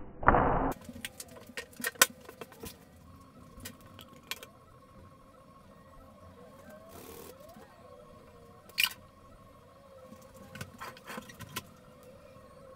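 A plywood clock dial set down on a tabletop with a knock, then scattered light clicks and taps as small parts and wire are handled, with one sharper click about nine seconds in. A faint steady tone sits underneath.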